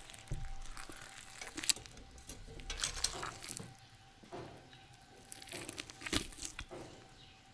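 Faint, irregular clicks and rustles, with one sharper click a little under two seconds in, over a faint steady hum.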